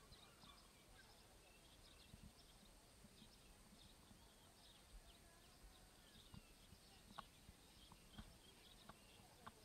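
Near silence: faint outdoor ambience with scattered faint high chirps and a few soft clicks and low thumps.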